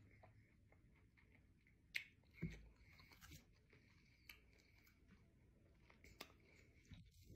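Near silence, with faint chewing of a mouthful of fruit and a couple of soft mouth clicks about two seconds in.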